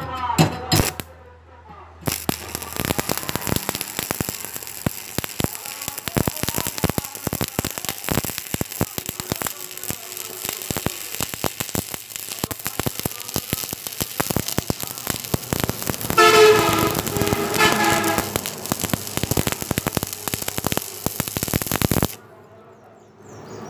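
Stick-welding arc from a 6013 electrode on steel angle iron, crackling steadily from about two seconds in and cutting off abruptly near the end. A brief pitched sound rises over the crackle about sixteen seconds in.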